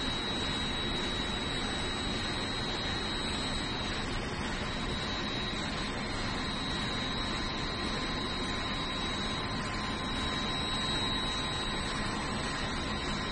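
Steady, unchanging hum and hiss with a thin high-pitched whine running through it.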